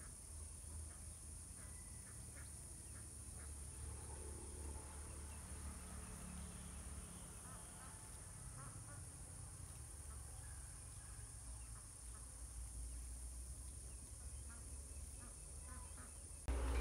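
Faint outdoor pond-side ambience: a steady high-pitched hiss with scattered faint short calls, like distant birds. A sudden loud low rumble starts near the end.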